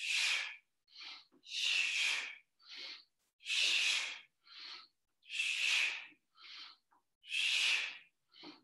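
Forceful, rhythmic breathing paced to side-to-side twisting. A longer hissing breath alternates with a shorter one, the pair repeating about every two seconds.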